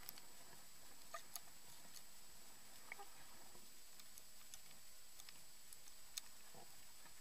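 Faint underwater ambience: a steady hiss with about ten small clicks and ticks scattered irregularly, the sharpest a little after six seconds in.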